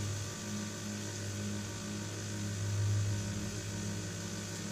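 Power Smokeless Grill's built-in exhaust fan running, a steady whir over a low hum.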